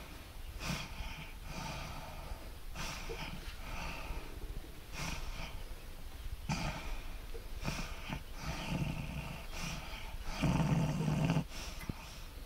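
A woman's heavy, snoring breathing after a tonic-clonic seizure: the stertorous breathing of the post-ictal phase. Breaths come about every one to two seconds, the deepest and loudest snore near the end.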